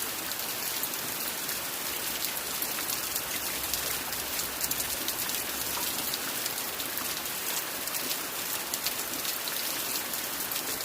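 Heavy rain falling steadily, an even hiss full of many fine drop clicks.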